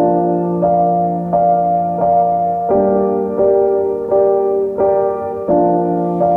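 Background piano music: chords struck at an even, unhurried pace, about one every 0.7 seconds.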